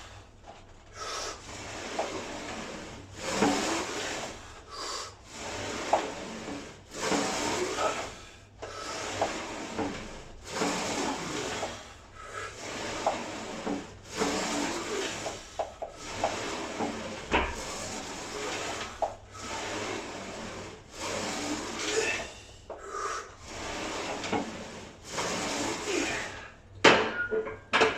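Gym weight machine worked through repetitions: a regular rasping, rubbing stroke about every second and a half as the moving parts slide back and forth.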